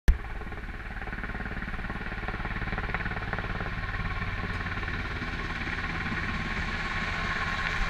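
Black Hawk helicopter overhead, its rotor beating in a fast, even pulse that slowly grows louder as it comes in for a drop. A sharp knock at the very start.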